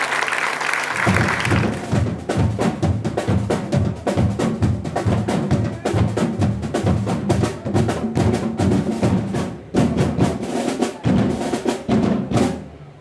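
Brief audience applause, then a group of drummers on djembes and a drum kit playing a fast, steady rhythm.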